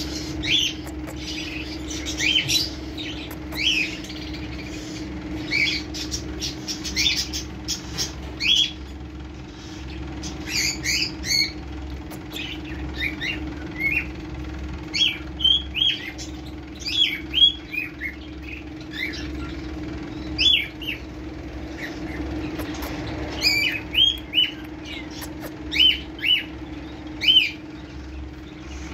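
Repeated short, high chirping calls from small animals, coming singly and in quick little clusters, over a steady low hum.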